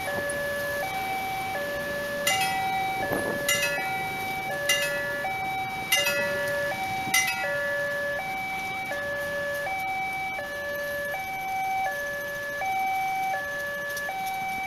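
Railway level-crossing warning alarm sounding its steady two-tone signal, a higher tone and a lower tone alternating about every three-quarters of a second, warning that a train is approaching. Road traffic passes underneath, with a few short sharp sounds in the first half.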